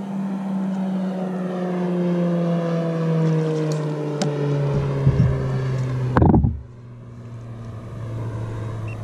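A motorboat engine running past, a steady hum whose pitch slowly falls. About six seconds in there is a loud brief rustling bump on the microphone.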